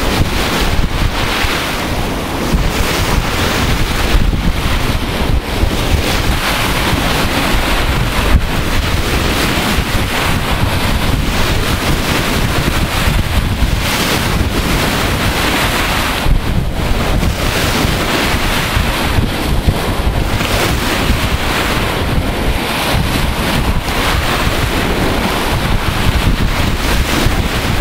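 Wind buffeting the microphone: a loud, steady rushing noise with a gusty low rumble.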